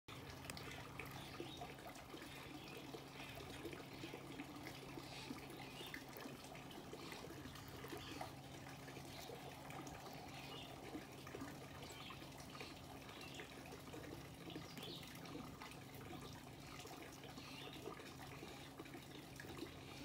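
Kestrel chick tearing flesh from a dead mouse with its beak: faint, irregular wet picking and small clicks, over a steady low hum.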